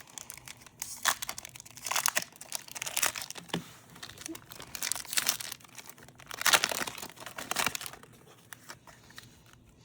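Pokémon card booster pack being torn open and its foil wrapper crinkled, a run of irregular crackling rustles that die down about eight seconds in.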